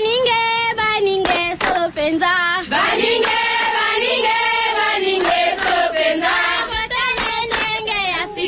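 A recorded group of voices singing a chant, with held and gliding notes and a few sharp percussive hits, played as a radio show sound drop.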